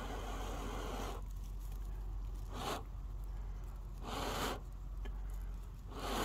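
A person blowing hard into smouldering char and feather-stick shavings to coax an ember into flame: a long breath out that ends about a second in, then three shorter puffs about a second and a half apart.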